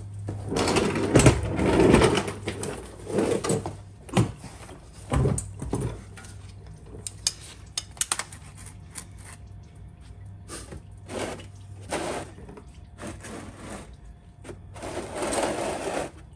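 Rustling and clattering from handling parts and tools under a car, a series of short irregular noises, loudest in the first two seconds and again near the end, over a steady low hum.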